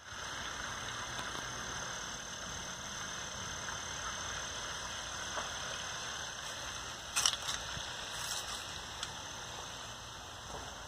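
Steady outdoor background hiss, with a short crackle about seven seconds in and a fainter one a second later.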